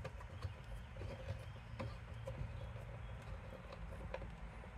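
Faint, scattered light clicks and rustles of hands handling and fitting insulated wires, over a low steady hum.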